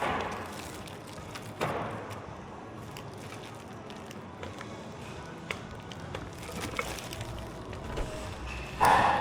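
A few scattered knocks and thuds over a steady background noise, with the loudest knock near the end.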